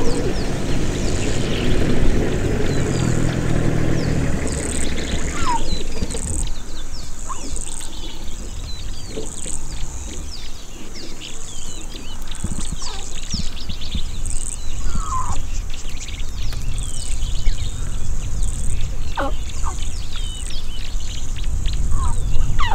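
Birds chirping in grassland: many short high chirps throughout, with a few louder short falling calls every few seconds. A low rumble sits underneath and is strongest for the first few seconds.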